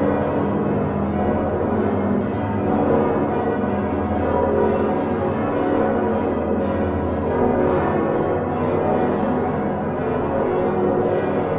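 Large swinging church bells of the Utrecht Dom tower, cast partly by Geryt van Wou in 1505 and hung on straight headstocks, ringing together as a full peal: a dense, continuous wash of overlapping strikes at many pitches, deep bells beneath higher ones.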